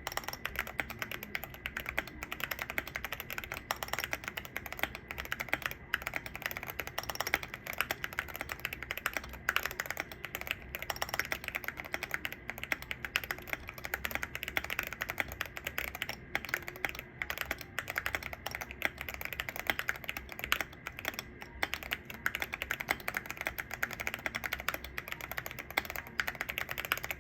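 Keychron Q1 mechanical keyboard with MT3 Susuwatari keycaps being typed on steadily: a dense, continuous run of key clacks.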